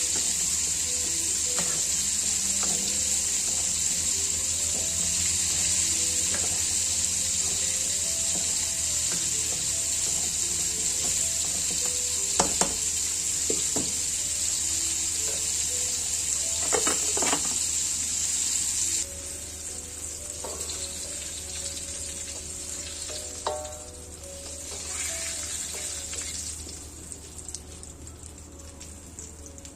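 Food frying and sizzling in hot oil in a pan, with a few sharp knocks of a utensil against it. The sizzle is loud and steady, then drops suddenly about two-thirds of the way through and goes on more quietly.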